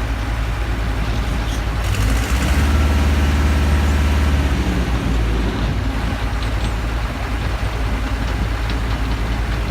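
Heavy engine running steadily with a low rumble. It swells louder for a few seconds about two seconds in, then settles back to its steady running.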